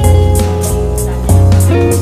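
Background music: guitar over a bass line and a steady beat.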